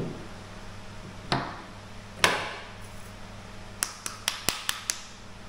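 Knocks and clicks from handling a Timemore hand coffee grinder as the fresh grounds are emptied out. There are two solid knocks about a second apart, then a quick run of about six light, sharp taps.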